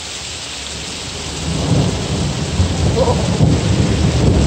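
Steady rain hissing, then a low rumble of thunder builds about a second and a half in and keeps rolling.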